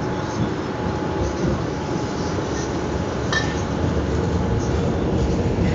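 Steady running rumble of an electric commuter train heard from inside the carriage, wheels rolling on the rails at speed, with one short metallic clink about three seconds in.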